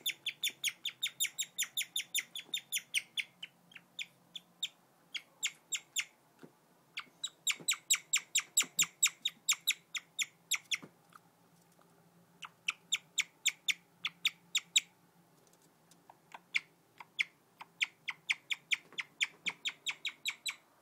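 Guinea pig chirping: a long run of short, high-pitched chirps at about three to four a second, coming in bouts broken by pauses of a second or two.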